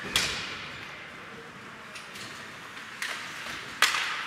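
Sharp cracks of ice hockey play, the puck and sticks striking in an echoing rink: one just after the start, then two more about three and four seconds in, the last the loudest.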